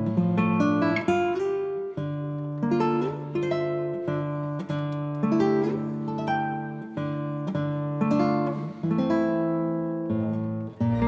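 Background music: acoustic guitar playing plucked notes and chords, each note ringing and then fading.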